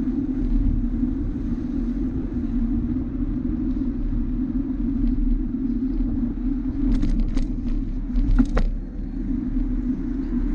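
Steady low rumble of a bicycle riding over paved stones, with a few sharp rattling knocks about two-thirds of the way through.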